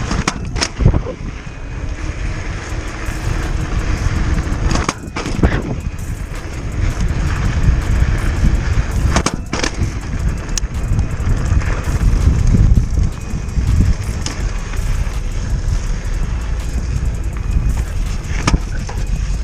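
Riding an e-bike with fat off-road tyres: a steady low rumble of wind buffeting the microphone and tyres rolling over the ground, broken by several sharp knocks and clatters from the bike.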